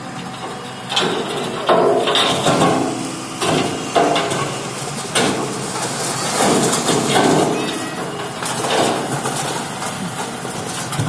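Load of rocks sliding out of a tipper dump truck's steel bed as the bed is raised, a run of irregular clattering crashes beginning about a second in, over the truck's engine running.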